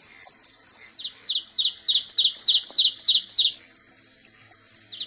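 A bird singing a quick run of about a dozen sharp, falling high notes, about five a second, that breaks off after two and a half seconds. A steady high-pitched whine sounds before and after the run.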